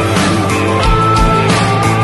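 Background music with a steady drum beat and a held melody note near the middle.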